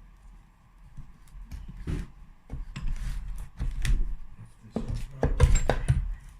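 Irregular metallic clicks, knocks and clatter of tools and parts being handled on a two-stroke motorcycle engine during teardown, growing busier and loudest near the end.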